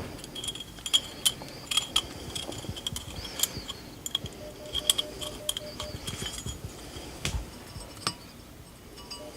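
Light metallic clicks and clinks of a steel piston oil-ring rail being worked by hand into the piston's ring groove, with a few brief ringing tings.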